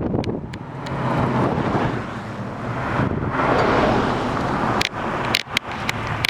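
A car running past, its engine and road noise swelling about halfway through, mixed with wind on the microphone. A few sharp clicks come near the end.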